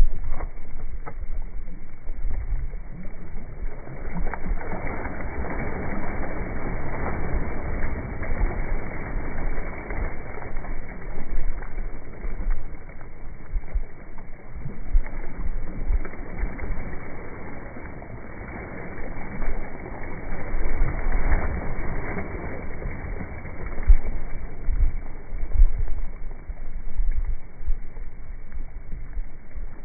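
Wind buffeting the microphone over water noise by a lake, a dull, uneven rumble that swells and fades every few seconds, quietest around eighteen seconds in.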